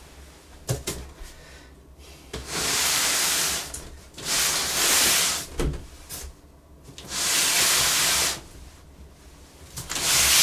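Hands rubbing and sliding over a large cardboard box: four long scraping swishes about every two seconds, with a couple of light knocks against the carton.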